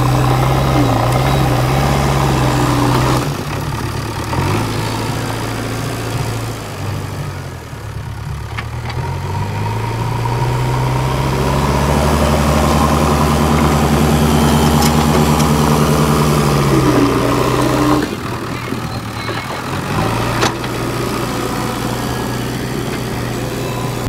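JCB 3DX backhoe loader's diesel engine working as its front bucket pushes into a pile of big rocks. It revs up under load about ten seconds in, holds high for several seconds, then drops back, rising again briefly near the end.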